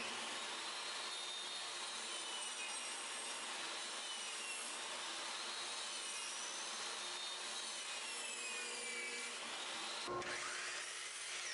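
Portable jobsite table saw running and ripping a thin wooden strip, a dense sawing hiss over a high motor whine whose pitch dips and recovers as the wood is fed through. The sound changes abruptly about ten seconds in, and the whine then climbs again.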